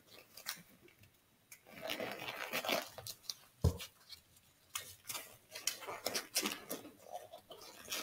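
Disposable exam gloves being pulled on by hand: the rubber rustles, squeaks and stretches in irregular short bursts. There is one sharp thump a little under four seconds in.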